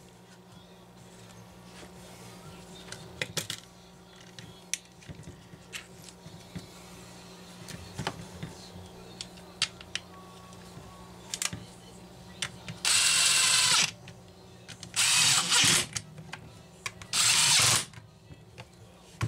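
Homelite 150 chainsaw's repaired recoil starter being tested: small clicks and taps of handling, then the starter rope pulled three times, each pull a rasping whir of about a second, turning the engine over. The starter now pulls and rewinds as it should.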